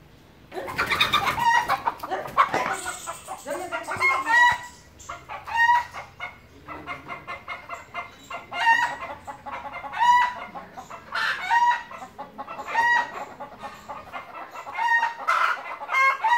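A squirrel's repeated alarm calls: short rapid chattering trains, each ending on a sharper note, repeating about every one and a half seconds. A burst of noise comes about a second in.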